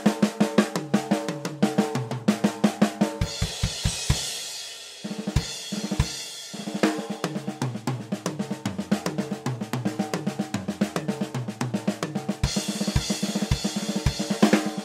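Drum kit played in fast strokes and fills around a Pearl S-6114D 14x6.5 steel-shell snare drum and the toms. Crash cymbal and bass drum kicks come in about three seconds in and again near the end.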